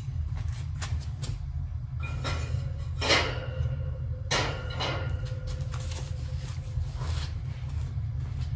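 Bisque-fired pottery being handled: a few soft knocks and scrapes, the two loudest about three and four seconds in, over a steady low hum.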